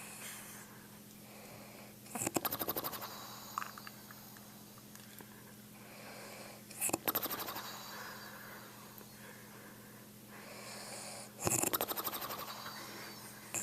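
An elderly woman snoring: three rattling snores about four and a half seconds apart, each a quick flutter lasting under a second. A faint steady hum runs underneath.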